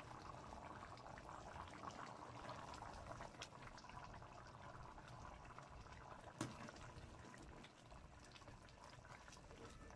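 Thick chicken caldereta sauce simmering in a metal pan, with faint bubbling and small pops throughout and a single light knock about six seconds in.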